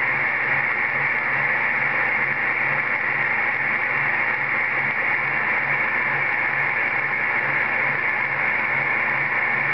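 CB radio receiver hiss coming through the set's speaker after the microphone is unkeyed: a steady, loud rushing static, brightest in the upper-middle range, with a faint low pulsing hum underneath. This is the whooshing noise heard on unkeying.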